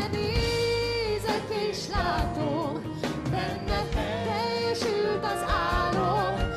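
Gospel band playing a song, with sustained instrumental chords and drum hits under wavering sung melody lines.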